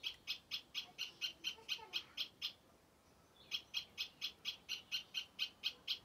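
Recorded great spotted woodpecker call played from a bird soft toy's small built-in speaker: a fast, even series of sharp high notes, about four a second, in two runs with a pause of about a second between.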